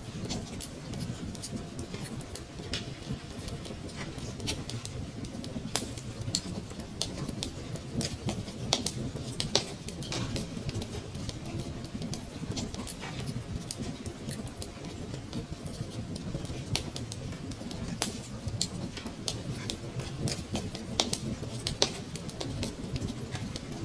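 Fireplace fire crackling: irregular sharp pops and snaps scattered over a steady low rumble of the flames, with a few louder snaps now and then.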